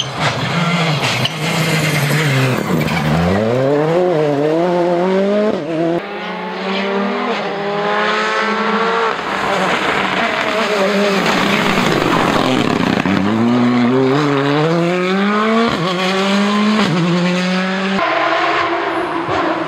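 Rally cars driven flat out on a stage, one after another. Their engines climb in pitch through the gears with quick upshifts, and one note falls as a car passes close by.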